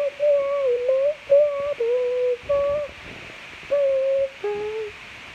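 A young boy humming a tune without words in a run of short held notes, each with small dips and bends in pitch, with a pause about midway.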